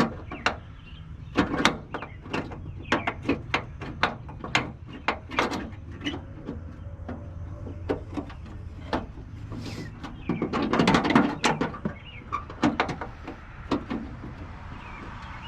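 Irregular metallic clicks and knocks of a hand wrench being worked in a tight space, turning a bolt as it threads into a plastic running light housing. A denser, louder clatter of tool on metal comes about two-thirds of the way through.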